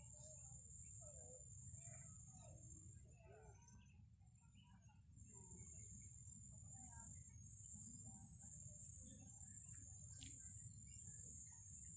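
Faint open-air ambience: a steady high insect drone with scattered short bird chirps over a low rumble of wind.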